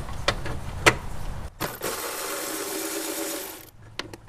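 Milwaukee M12 cordless ratchet motor running for nearly two seconds, spinning a 10 mm timing-cover bolt loose, then stopping abruptly. It follows a few sharp clicks of metal on metal.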